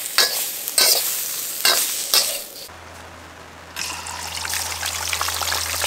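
A metal ladle scrapes and knocks against a steel wok, several strokes, as shrimp stir-fry with a sizzle. After a short lull about halfway through, a steady dense sizzle follows as a grouper fries in hot oil in a pan.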